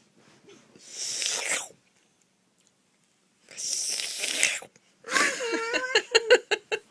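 A child's breathy vocal noises: two long hissing exhalations, then a voiced, stuttering burst broken into rapid catches, like snorting or spluttering laughter.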